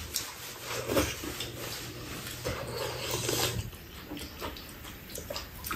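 A person sipping hot soft-tofu stew from a spoon, with short slurps and breaths over the too-hot food. A faint low hum stops about two-thirds of the way through.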